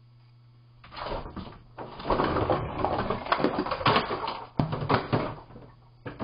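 Household items clattering as a cat knocks them about on a shelf: a dustpan and other things rattle and knock for several seconds, then a few separate knocks near the end as a long-handled item falls.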